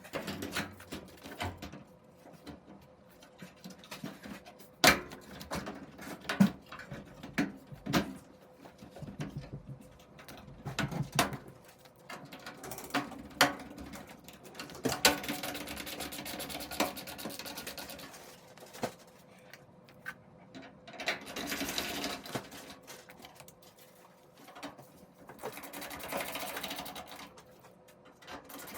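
Knocks and clicks of a dryer's sheet-metal front support bracket being fitted, with three bursts of a cordless drill-driver running in screws.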